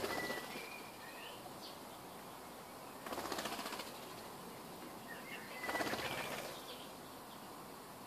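A garden bird's wings flapping in three short flurries: at the start, about three seconds in, and about six seconds in. Brief high chirps come with the first and last flurries.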